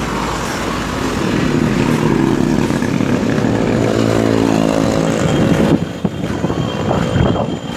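A motor vehicle's engine passes close by over steady traffic and wind noise, its pitch shifting as it goes, from about a second and a half in until a little before six seconds.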